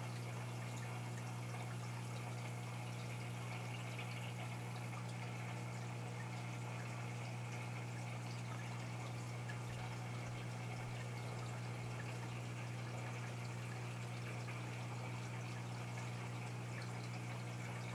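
Aquarium equipment running: a steady low hum with water trickling and bubbling in the tank.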